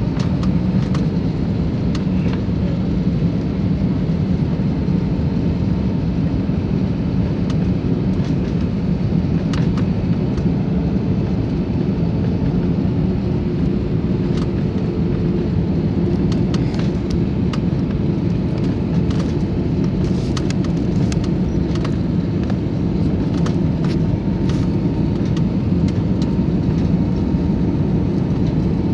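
Cabin noise of an Airbus A320-family airliner on final approach: a steady low rumble of engines and airflow with a faint steady whine, and a few faint clicks in the middle.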